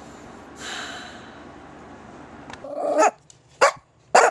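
A chihuahua barking: after a few seconds of quiet room tone, one drawn-out bark, then two short, sharp yaps in quick succession near the end.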